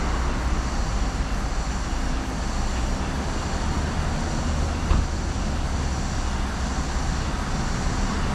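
Steady road traffic noise with a deep rumble, and one sharp knock about five seconds in.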